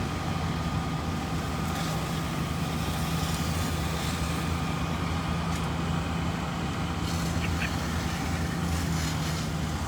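Idling fire truck engine, a steady low drone with a faint steady whine above it.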